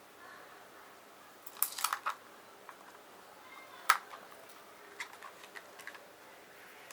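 A few short plastic clicks and taps from the DJI Mavic Mini drone being handled: a quick cluster about a second and a half in, one sharp click near four seconds, then a few light ticks.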